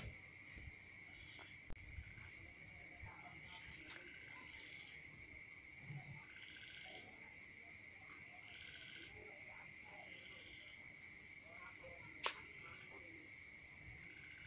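Night-time cricket chorus: a steady high-pitched trilling, with a softer chirp repeating every second or two. A single sharp click comes near the end.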